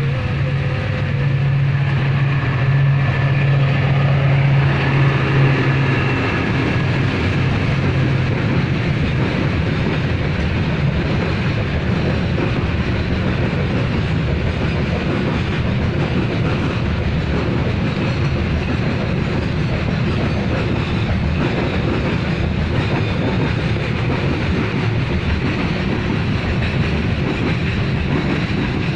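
Heavy rain falling steadily, a continuous even hiss. A low steady hum sits under the rain for about the first six seconds, then stops.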